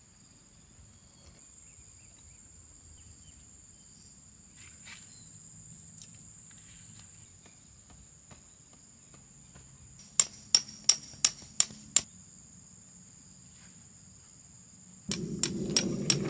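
Tent pegs being hammered into the ground: a run of six sharp strikes, about three a second, starting two-thirds of the way through, and another quick run of strikes right at the end. Under them is the steady high chirring of insects.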